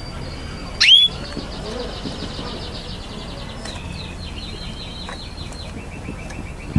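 Canary singing: a loud, quick upward-sweeping whistle about a second in, then long runs of fast, evenly repeated high notes that change to a new trill partway through.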